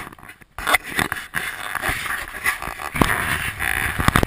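Snowmobile riding through deep powder: its engine running under loud rushing wind noise and crackling snow spray hitting the microphone, with many sharp knocks. The noise comes in abruptly about half a second in, after a short quieter moment.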